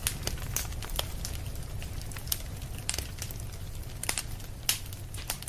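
Wood campfire crackling, with irregular sharp pops and snaps over a low steady rumble of the flames; a few pops stand out louder.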